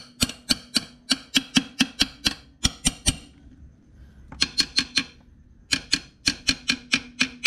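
Quick metallic taps with a hand tool on a Yamaha NMAX scooter's metal CVT cover, about three a second in three runs with two short pauses. The tapping knocks the cover loose so it can be pulled off.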